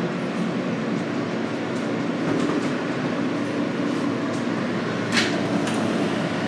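Interior of a New York City subway car standing at a station: a steady hum of the car's ventilation and equipment, with one short, sharp hiss about five seconds in.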